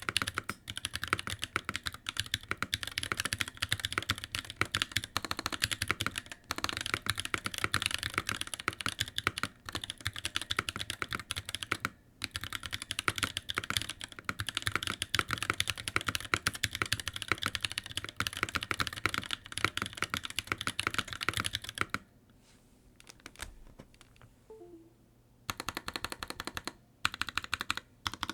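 Typing on a mechanical keyboard with unlubed Durock POM T1 67 g tactile switches under PBT doubleshot keycaps in an NK65 Entry Edition case: a fast, steady clatter of keystrokes. It stops for a few seconds just past the middle, then the typing resumes. Unlubed, these switches have spring and leaf ping, which the owner calls the worst he has heard.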